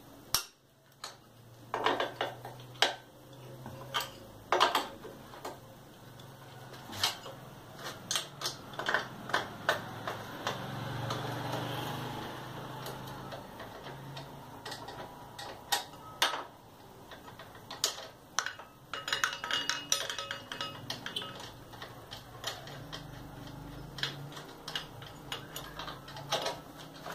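A 12 mm wrench working bolts on a Sundown MAX 125 engine's cylinder head, with sharp metal clicks and clinks and a few quick runs of ticking.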